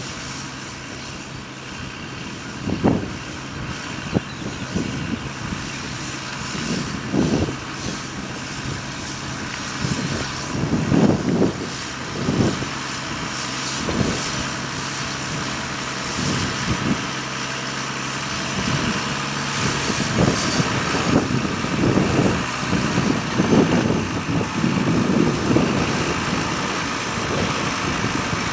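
Tractor engine running steadily as it pulls a plough through the field, with irregular low buffeting bursts over it.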